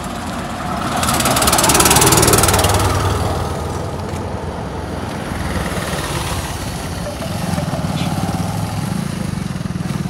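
An auto-rickshaw engine passes close by, loudest about two seconds in and then fading, over a steady low engine hum. Near the end the engine noise rises again as motorcycles approach.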